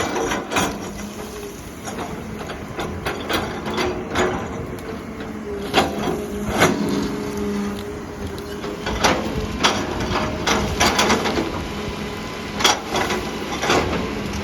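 Excavator running steadily, with repeated sharp knocks and cracks at irregular intervals as it works the oil palm trees.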